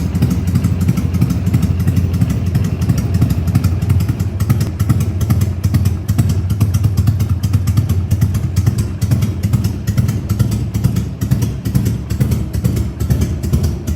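Carbureted Harley-Davidson V-twin engine running steadily at a constant speed, with a fast, even pulsing beat.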